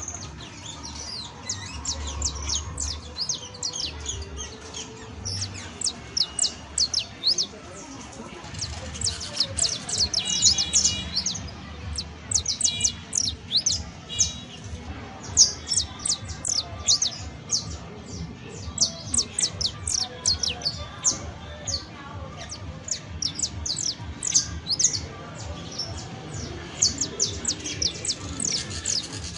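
Saffron finch singing: bursts of quick, high chirps, each sweeping sharply downward, repeated with short pauses.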